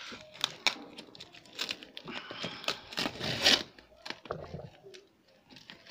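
Plastic packing tape being cut with a knife and ripped off a cardboard box: a series of crackling rips and crinkles, loudest a little over three seconds in, then quieter handling.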